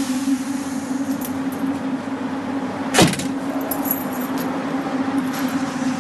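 A Jeep Cherokee's door slams shut about halfway through, followed by a brief jingle of keys, over a steady low hum.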